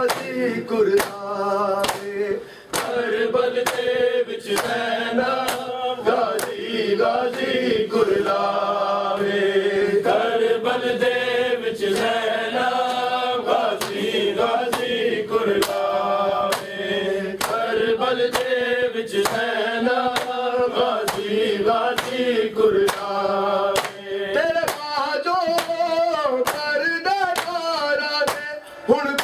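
Men chanting a noha, a mourning lament, in a repeating melody, over matam: bare hands slapping bare chests with sharp slaps in a steady rhythm that keeps time with the chant.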